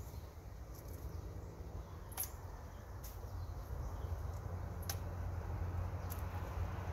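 About five sharp clicks at irregular intervals over a steady low rumble.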